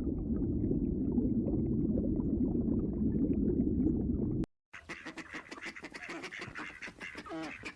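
A loud, dense, low noise that cuts off suddenly about four and a half seconds in. Then, after a brief gap, ducks quacking in quick repeated calls.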